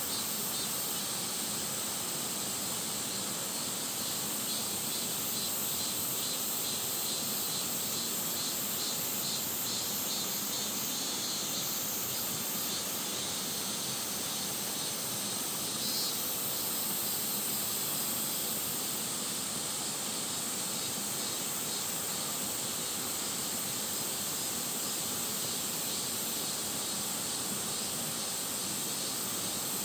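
Mountain valley stream flowing, a steady rushing water noise.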